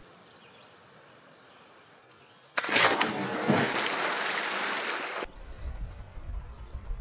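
A person jumping into river water: a loud splash about two and a half seconds in, followed by a couple of seconds of spray and churning water that cut off abruptly. After that comes a low rumble of wind on the microphone.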